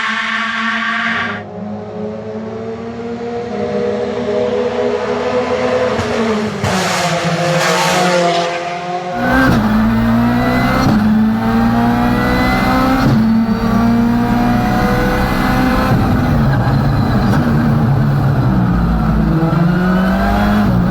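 Rally car engines at high revs, revving up and dropping back through gear changes, with sharp cracks and some tyre noise, cut together from several passes.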